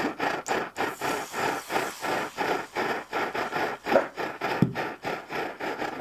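Optimus Svea petrol camping stove burning under a cast iron pan: a rasping rush that pulses evenly, about five times a second.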